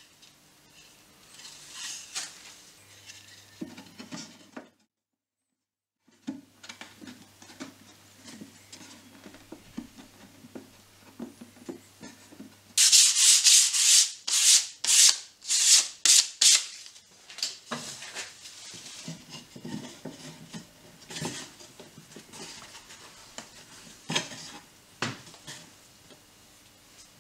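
Hand sanding a thin strip of wood with sandpaper: quick back-and-forth scratchy strokes, loudest in a run of about ten strokes a little under halfway through, at about two or three a second. Quieter rubbing and handling of the wood around it, broken by a second or so of dead silence about five seconds in.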